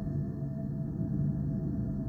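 Synthesized deep pulsing space drone for sleep: a steady low rumble with a faint tone above it that swells and fades gently.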